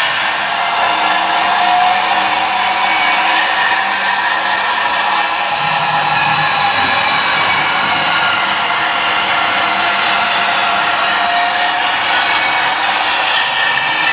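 H0-scale Piko model locomotives running on the layout: a steady whine of small electric motors, several tones drifting slightly in pitch over a hiss of wheels on track.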